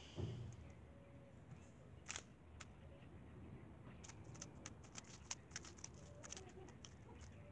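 Weilong GTS2 3x3 speedcube being turned fast: a quick, irregular run of sharp plastic clicks from the layers turning, starting about four seconds in. A soft thump comes at the start and a single click about two seconds in.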